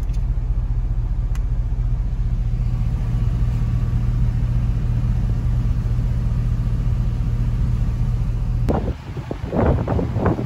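Pickup truck engine idling, heard from inside the cab as a steady low drone. About nine seconds in it stops abruptly and gives way to uneven bursts of wind buffeting the microphone.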